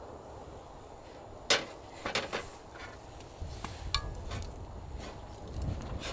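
A few sharp clicks and knocks over a low rumble. The loudest knock comes about a second and a half in, with a small cluster just after and two more near the middle.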